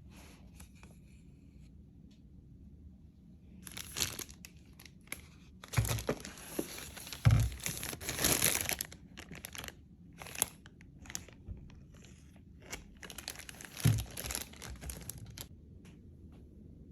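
Packaging being handled and torn open: irregular crinkling, rustling and tearing in bursts for about twelve seconds, starting a few seconds in, with a few soft thumps.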